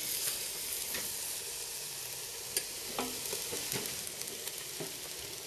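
A large batch of chicken sizzling on a barbecue grill: a steady hiss of fat and juices with a few sharp pops and crackles scattered through it.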